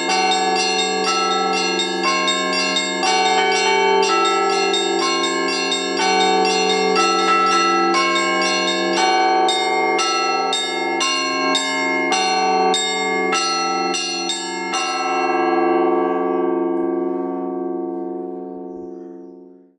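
Russian Orthodox church bells rung by hand from the ropes in the Rostov tradition: the small bells strike a quick steady pattern over the ringing of the larger bells. The strikes stop about fifteen seconds in and the bells ring on, dying away to silence.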